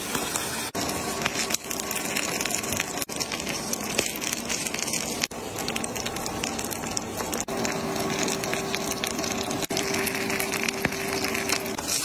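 Fish cake batter frying in hot oil in a pan, with a dense, steady sizzle of fine crackles broken by brief dips every couple of seconds. A low steady hum joins for a few seconds in the second half.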